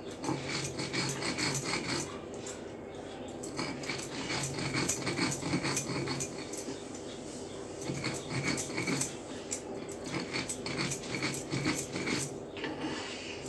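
Stone grinder rubbed back and forth on a flat grinding stone (sil-batta), crushing dry ginger with sugar into powder: gritty scraping strokes in spells of about two seconds, with short pauses between.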